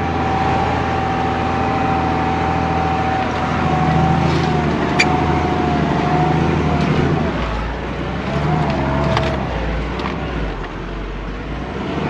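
Mercedes Unimog U1700L truck's diesel engine running as it drives up a rutted dirt track, heard from inside the cab. A steady whine sits over the engine, and there are a few sharp knocks.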